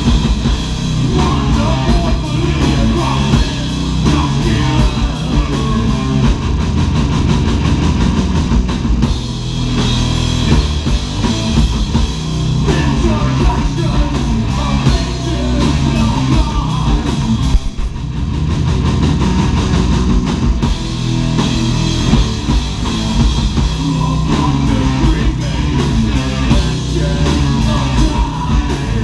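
Live heavy metal band playing at full volume: electric guitars, bass guitar and a drum kit with rapid, driving drumming, dipping briefly a little past halfway before carrying on.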